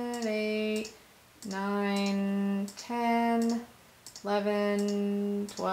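A woman's voice holding long, level sing-song notes, about five of them with short gaps, over faint computer mouse clicks as she works through a software menu again and again.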